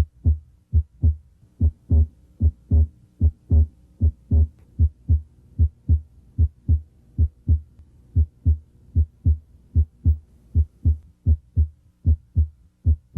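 Human heart sounds as heard on auscultation: a steady lub-dub rhythm, each beat a pair of dull thumps (first and second heart sounds), at a little over one beat a second.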